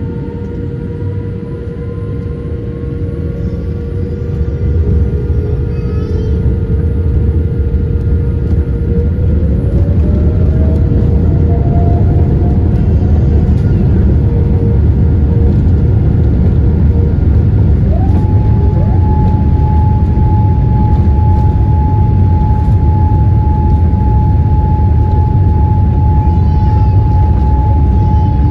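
Boeing 787-8's Rolls-Royce Trent 1000 engines spooling up to takeoff thrust, heard from inside the cabin: a deep rumble that grows louder over the first ten seconds, with whines rising in pitch. A little past halfway a steady high whine sets in as the aircraft rolls down the runway.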